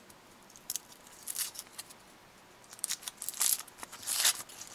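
Foil wrapper of a Kinder Surprise chocolate egg being peeled and torn off by hand. It crinkles in short bursts that come more often after about three seconds.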